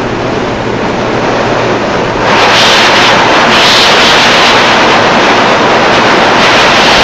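Mobile bagging plant running: a loud, steady mechanical rush from the bagging machine and its conveyors, growing louder and hissier about two seconds in.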